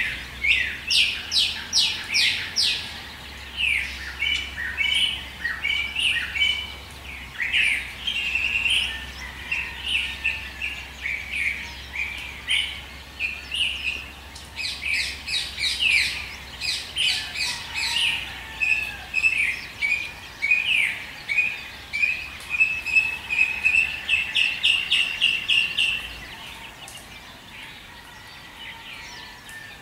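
Several songbirds singing in a dawn chorus: quick chirping notes and short rapid trills overlapping one another. The chorus quietens about four seconds before the end.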